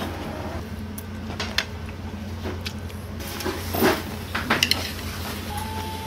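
A metal spoon clinking and scraping against ceramic plates and bowls while eating: several light clicks spread over a few seconds, over a steady low hum.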